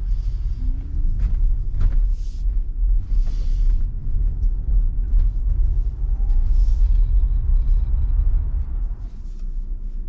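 Low, steady road and tyre rumble of an electric Tesla Model Y driving, with a few short hissing swishes about two to three seconds in and again near seven seconds.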